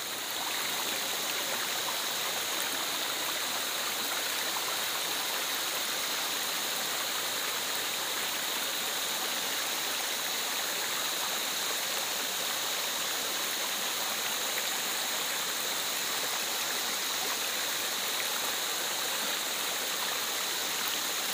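Shallow mountain stream running and splashing over rocks in a steady, even rush of water.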